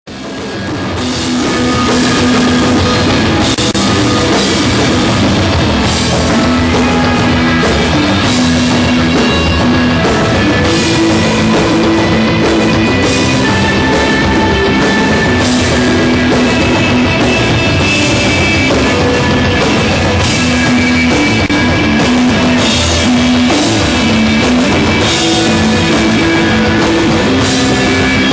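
Live stoner rock band playing: electric guitar and drum kit in a steady, sustained groove, fading in over the first two seconds.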